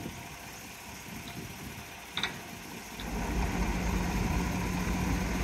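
Leyland semi-trailer truck's diesel engine running quietly at first, then louder and steady from about three seconds in as the truck moves. A single short metallic clink a little after two seconds.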